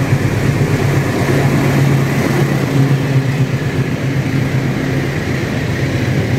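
A KRL Commuter Line electric train running past close along the platform, a steady low hum and rumble of the moving train.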